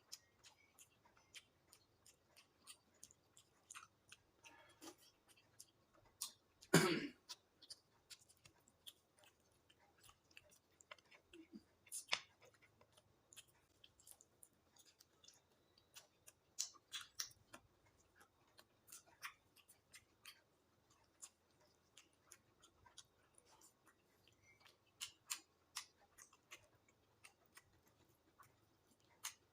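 Faint eating sounds: a person chewing, with scattered small clicks and crackles of food being handled, and one louder sound about seven seconds in.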